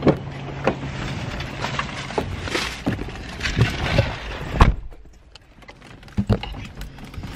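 Knocks and shuffling as someone climbs into a car, then a car door shuts with a solid thump about two-thirds of the way through. The outdoor background noise drops away after it, and a couple more thumps follow inside the car.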